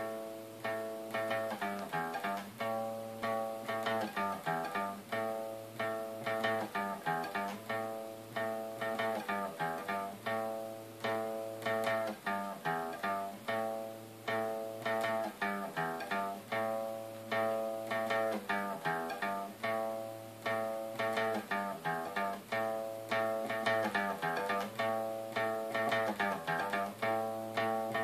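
Guitar playing a slow power-chord riff in steady repeated picked strokes, starting suddenly. The riff moves through A, G and E power chords.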